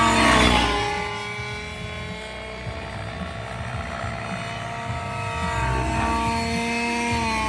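Gas-powered RC helicopter in flight, its engine running through a Quietpower muffler with the rotor hum. There is a loud swell with a falling pitch right at the start, and the pitch falls again near the end as the throttle changes in flight.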